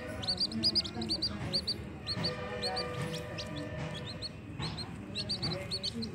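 Newborn chicks peeping under a brooding hen: quick runs of short, high chirps that thin out in the middle and pick up again near the end.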